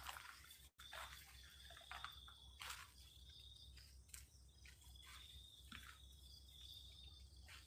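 Faint night ambience of insects trilling on one high, steady note that keeps breaking off and resuming. Scattered soft clicks and shuffling footsteps on earth run alongside it.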